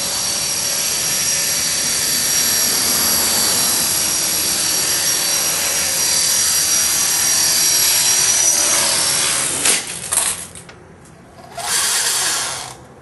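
EXI 450 electric RC helicopter's motor and rotor whining steadily at a high pitch, then a sharp crack as it crashes, after which the whine stops. A short burst of rushing noise follows about two seconds later.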